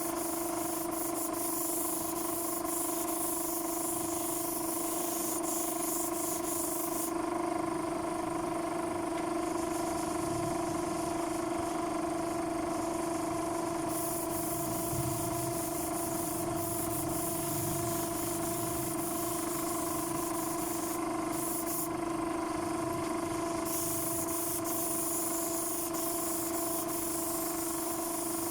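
Paint spray gun hissing as it sprays sanding sealer, over the steady hum of a running motor, likely the air compressor feeding it. The high hiss drops away for several seconds about seven seconds in, and again briefly a little past twenty seconds, while the hum carries on.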